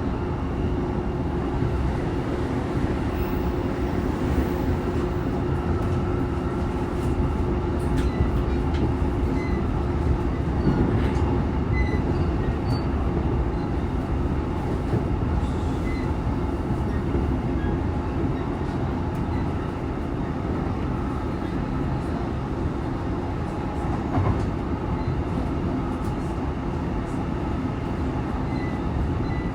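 Interior running sound of a JR East E233-3000 series electric multiple unit cruising between stations: a steady rumble of wheels on rail with a faint steady hum and a few light ticks.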